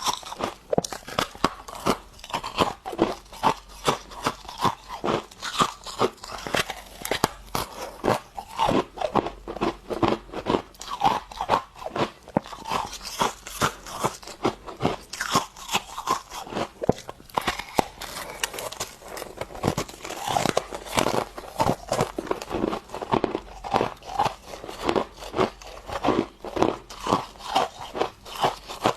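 Freezer frost being bitten and chewed: a continuous run of crisp, crackly crunches, close to the microphone, with loud bites about twice a second.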